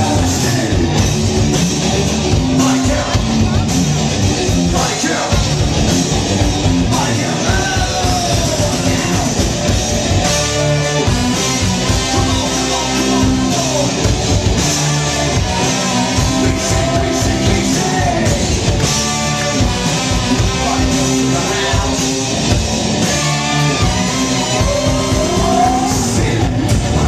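Live rock band playing loudly, with drums, guitar and a singer half-singing, half-yelling the lead vocal.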